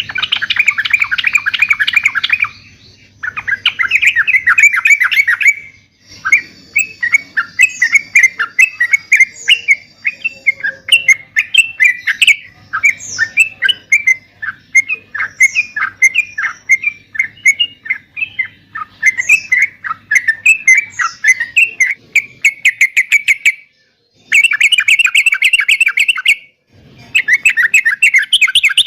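Yellow-vented bulbul singing loudly and continuously: fast, dense chattering bursts, with a long stretch of quick separate whistled notes in the middle and a few brief pauses between phrases. It is the aroused, full-volume 'gacor' song used as a lure to make other bulbuls answer.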